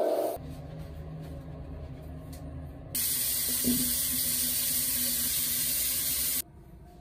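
Water running steadily from a bathroom sink tap. It starts suddenly about three seconds in and cuts off abruptly near the end, after a quieter stretch with a low hum.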